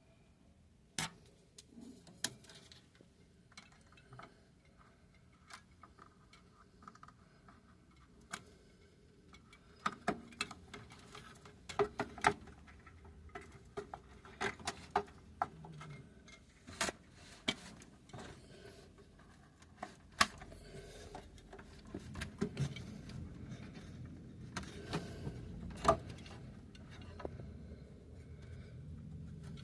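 Irregular sharp clicks and small knocks of computer memory modules being pulled from and pressed into a motherboard's RAM slots, the slot latches snapping. A low rumble builds over the last ten seconds or so.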